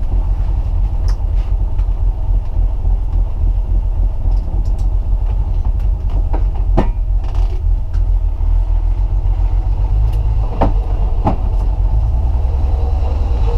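BMW E36 M3's straight-six engine running with a steady low rumble, heard from inside the cabin, with a few short knocks or clicks about two-thirds of the way through.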